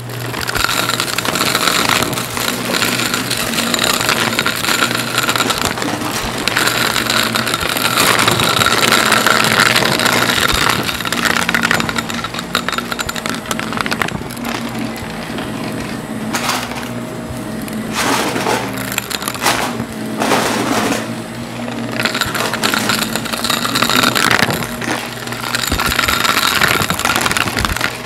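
Upright vacuum cleaner running with a steady motor hum. Its pitch and airflow swell and ease as the head is pushed back and forth, with scattered clicks and rattles from confetti being sucked up, most of them in a burst a little after the middle.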